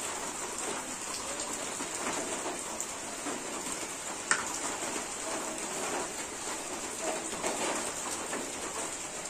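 Chicken broth simmering in an iron wok over a wood fire: a steady crackling, pattering hiss as rice flour is stirred in, with a single sharp clink of the ladle about four seconds in.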